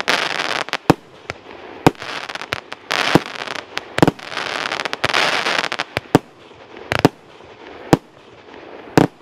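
A 40 mm, 48-shot firework battery firing in sequence: sharp bangs about once a second, with the shells bursting into long spells of dense crackling.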